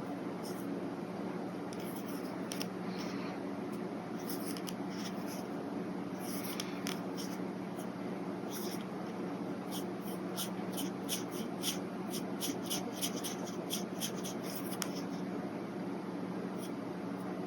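Brush pen strokes on paper: scattered scratchy strokes, then a run of quick short strokes, about three a second, from around ten seconds in. A steady low hum sits underneath.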